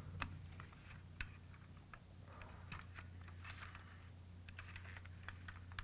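Faint, scattered light clicks and small handling noises of a screw and hard plastic toy parts being handled, over a steady low electrical hum.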